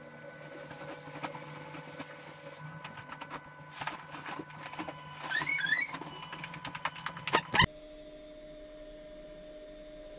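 Duvet and bedding rustling and flapping, with soft knocks, as a duvet is shaken out and spread over a bed. It is busiest in the middle, with a brief squeak, then stops abruptly, leaving a low steady room hum.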